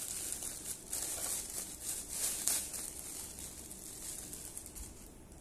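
Clear plastic wrapping crinkling and rustling as it is pulled off a model airliner and handled, busy with little crackles for the first few seconds and dying away near the end.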